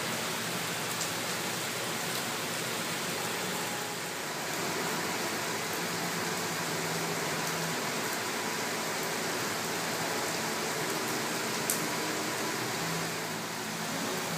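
Steady heavy rain falling, an even hiss, with one sharper tap near the end.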